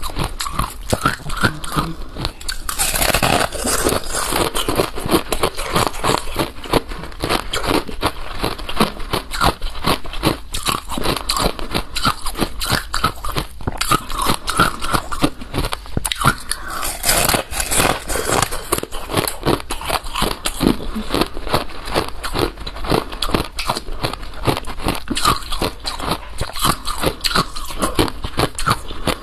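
Balloon ice (ice frozen inside a balloon) being bitten and chewed in rapid, continuous crunches.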